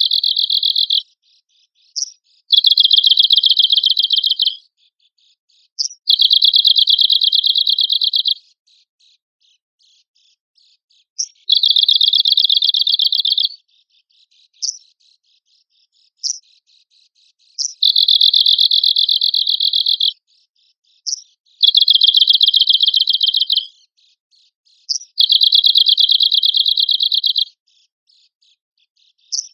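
Arctic warbler singing: a short high note followed by a rapid trill of about two seconds, repeated every three to four seconds.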